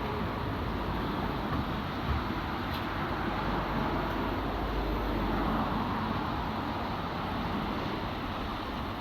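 Steady outdoor street noise of traffic, with a single dull low thump about two seconds in.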